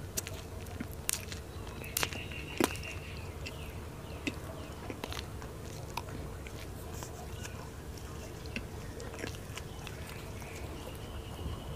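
Close-miked chewing of a soft pastry: wet mouth clicks and smacks, with a few louder clicks two to three seconds in, over a faint steady hum.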